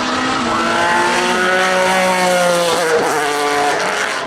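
Pilbeam MP91 LMP2 race car's JPX/Mader V6 engine at high revs. Its pitch rises and then slowly falls, with a short break about three seconds in, like a gear change, before it picks up again.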